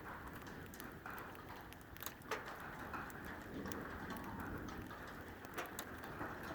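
Steady rain falling during a thunderstorm, with scattered individual drops tapping sharply on a surface.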